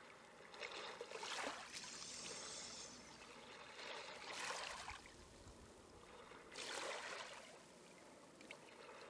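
Faint, slow breathing in and out: about four long, airy breaths, with quiet gaps between them.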